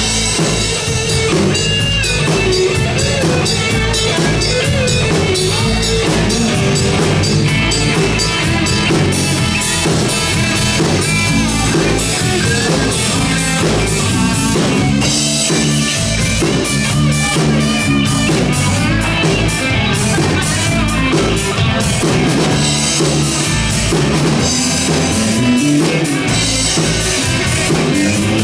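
Live rock band playing an instrumental passage with no singing: electric guitar, bass guitar and drum kit, loud and steady throughout.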